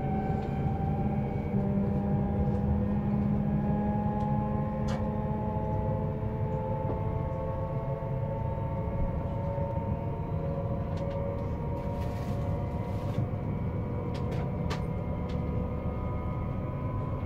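Siemens Velaro E320 (Eurostar Class 374) traction inverter whining as the train accelerates on 3,000 V DC supply: several steady tones rise slowly in pitch over the low rumble of the running train. A few faint clicks sound briefly in the middle.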